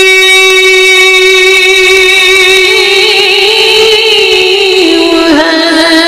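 Devotional hamd singing: one long held sung note with vibrato, stepping down in pitch about five seconds in.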